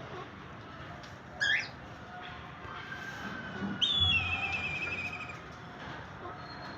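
Parrots calling: one short sharp call about a second and a half in, then a longer call near four seconds in that drops in pitch and is held with a warble for over a second.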